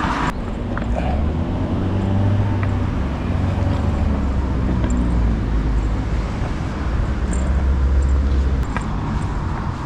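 A motor vehicle's engine running close by: a low, steady hum that cuts off abruptly near the end.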